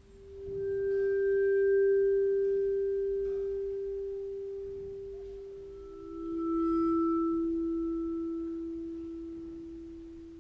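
Two long ringing vibraphone notes: a higher note swells in and slowly dies away, and a slightly lower note enters about six seconds in and rings on beneath it.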